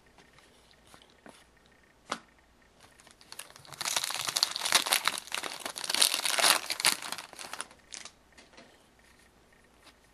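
Foil wrapper of a hockey trading-card pack being torn open and crinkled: a few light clicks, then several seconds of dense crackling from about three seconds in.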